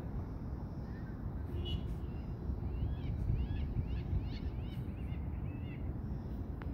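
Canada goose goslings peeping: a quick run of short, high chirps that starts a couple of seconds in and lasts about three seconds, over a steady low rumble.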